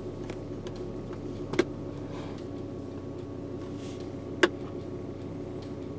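Volvo turbocharged straight-five engine idling steadily at about 770 rpm, with a newly replaced electronic throttle module, heard from inside the car. Two sharp clicks cut through the hum, a little under two seconds in and again near the three-quarter mark.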